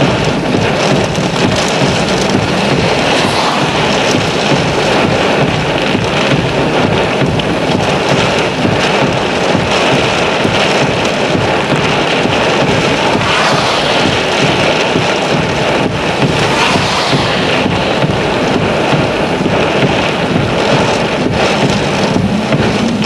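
Heavy rain and wind in a severe thunderstorm: a steady, loud rush of noise with no distinct thunderclap.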